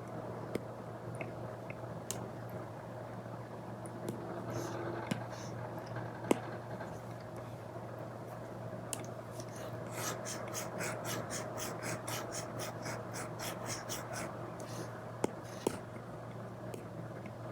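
Apple Pencil tip drawing on an iPad with a paper-feel screen protector: scattered taps and short scratchy strokes, then a quick run of short strokes about five a second for some four seconds, as in hatching or shading.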